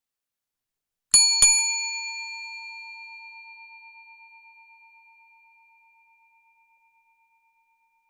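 Service bell (desk bell with a chrome dome) struck twice in quick succession about a second in. The two dings ring on and fade away over about four seconds with a slight wavering.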